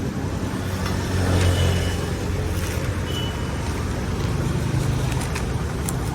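Road traffic: motor vehicles passing close by with a low engine rumble that swells twice, and a few sharp clicks over it.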